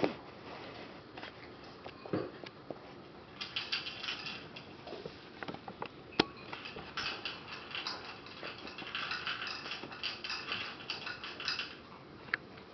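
Dogs eating from food bowls: bursts of rapid clicking and crackling as they pick food out of the bowls, with a few single sharp clicks in between.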